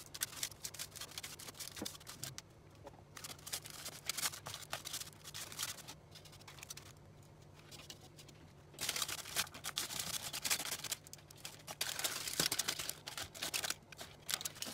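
Chopsticks clicking and tapping as breadcrumb-coated pieces are moved onto the air fryer basket, with aluminium foil crinkling and rustling. From about nine seconds in the rustling and crinkling becomes denser and louder.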